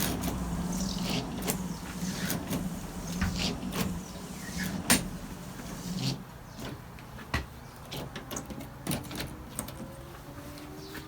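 Lucas windscreen wiper motor running, a steady electric hum with gear clicks and knocks. The hum drops away about six seconds in, leaving scattered clicks, and a faint rising whine comes in near the end.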